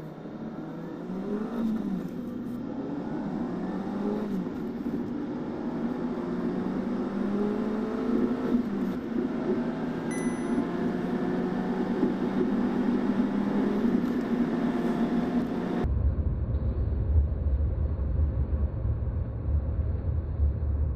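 Hyundai Grand i10 Nios petrol engine heard from inside the cabin under full acceleration, its note rising through the gears and dropping back at each upshift in the first seconds, then climbing steadily. About sixteen seconds in the sound changes abruptly to a deep, steady rumble.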